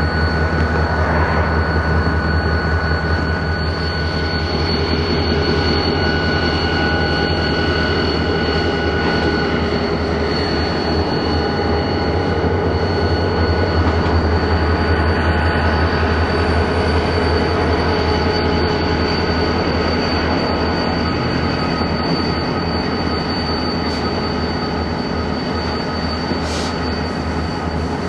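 Pair of EMD geep diesel locomotives running with a low, steady rumble while slowly shoving covered hopper cars, with steel wheels squealing a steady high-pitched squeal as the cars round the curved track. A short hiss comes near the end.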